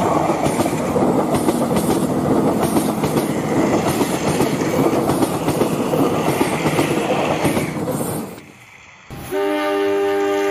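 Battery-powered toy trains rattling and clattering along plastic track, the wagons' wheels and the motors loud and close. The rattle cuts out about eight seconds in, and about a second later a steady, sustained horn tone starts.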